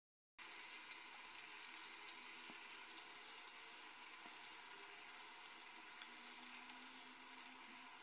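Pakora batter of onion, potato and gram flour deep-frying in hot oil in a karahi: a steady sizzle with fine crackling. It starts abruptly about half a second in, after a brief silence.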